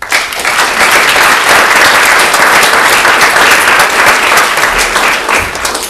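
Audience applauding loudly, breaking out all at once at the end of a talk.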